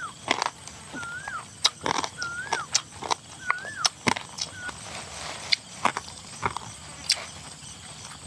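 An animal call, a short whistle that rises and falls, repeated about once a second for the first four to five seconds, with irregular sharp clicks and knocks throughout and a steady high thin drone underneath.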